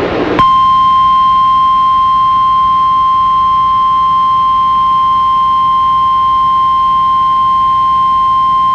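Emergency alert attention tone: one loud, steady single-pitch tone of about 1050 Hz, the weather-radio warning alarm that comes before a severe weather warning. It starts about half a second in, after a brief hiss, and holds unchanged.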